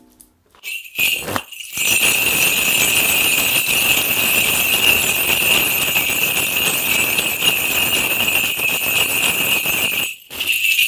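Korean shaman's ritual bell cluster (mudang bangul) shaken rapidly and continuously for about nine seconds, a dense metallic jingling that starts and stops abruptly. It is the shaman calling on the spirits before delivering a divination.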